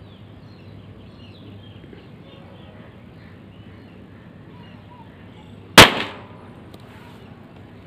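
A small scratch-lit matchbox-type firecracker goes off about six seconds in with a single loud, sharp bang and a brief ringing tail.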